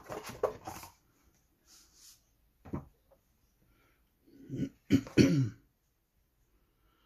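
A man coughing and clearing his throat, loudest about five seconds in. Between the coughs comes light rustling of thick cardboard game sheets being handled.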